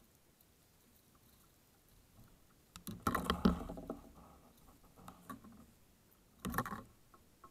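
A small bass being lifted out of the water into a kayak: a flurry of splashing and knocks about three seconds in, then another short burst of flapping and knocking near the end.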